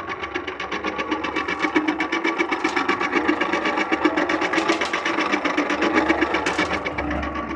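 Homemade electric concrete mixer running with a fast, even mechanical rattle. It grows louder about a second in and eases back down near the end.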